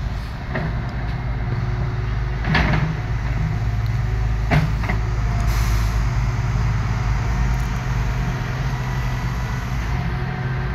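PESA SA133 diesel railcar approaching at low speed, its diesel engine droning steadily, with two sharp clacks about two and a half and four and a half seconds in.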